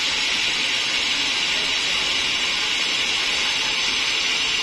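Large band sawmill's blade cutting through a teak log, a steady high hiss that holds even throughout.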